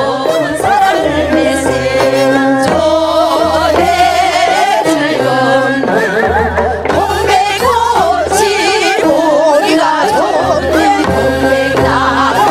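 Several women singing a Korean folk song (minyo) together into microphones over amplified instrumental accompaniment with a repeating bass line. The voices carry a wide, wavering vibrato.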